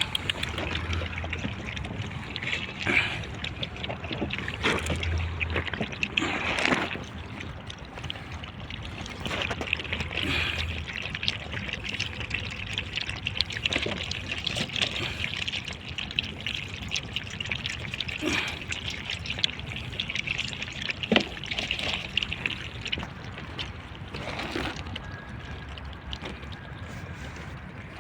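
A litter of puppies lapping milk together from metal platters: a steady mass of wet lapping and small clicks of tongues and muzzles.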